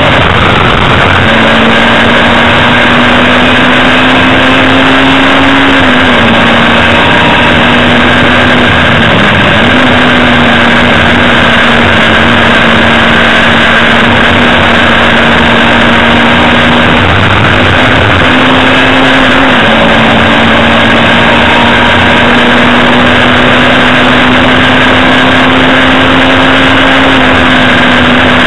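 Hillman Imp race car's rear-mounted four-cylinder engine heard from inside the cabin, running loud and steady at high revs. The pitch dips briefly a few times as the revs drop and pick up again.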